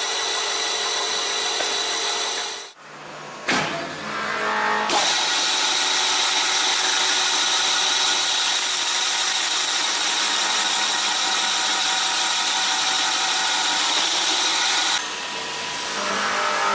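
A power tool working wood: a steady motor whine over a hissing cutting noise. It drops out about three seconds in and resumes steadily at about five seconds.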